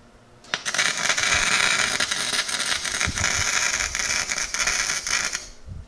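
Arc of a 90-amp Harbor Freight wire-feed welder, converted to DC electrode-negative and running 0.030 wire on low power, crackling steadily while it welds a bolt to steel. It strikes about half a second in and stops just before the end, about five seconds of continuous crackle.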